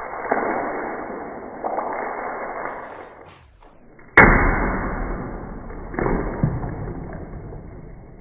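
A knife slashing through a plastic water bottle: a sharp crack about four seconds in, followed by a long fading rush of noise. There are other rushing thuds at the start, and again before and after the crack.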